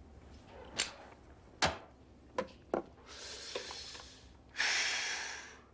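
A few sharp clicks, then a person drawing on a cigarette and blowing the smoke out, the breath out louder and about a second long.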